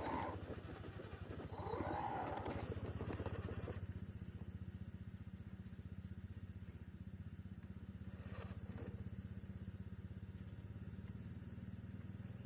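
Small electric motor and gearbox of a 1:12-scale RC 4x4 crawler running, a steady whir with a thin high whine, surging louder at the very start and again about two seconds in.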